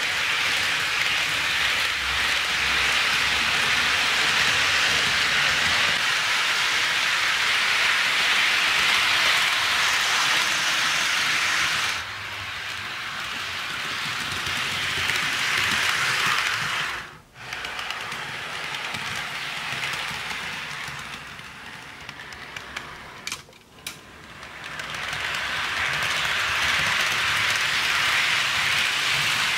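HO-scale model trains running on sectional track with moulded roadbed: a steady rushing rattle of wheels rolling on the rails. It is softer through the middle stretch and drops out briefly twice.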